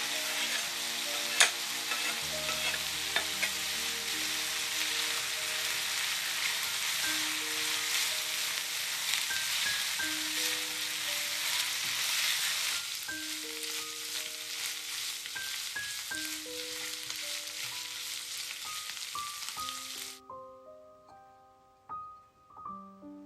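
Food sizzling in a hot frying pan, a dense hiss with fine crackles and a sharp tap about a second in. The sizzle stops abruptly near the end, leaving soft music of slow single notes.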